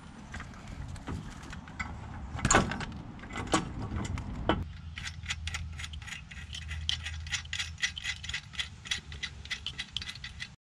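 Metal clunks and rattles as a finned aluminium control box is set against the buggy's steel tube frame, then, from about five seconds in, a ratchet wrench clicking rapidly as a mounting bolt is run down.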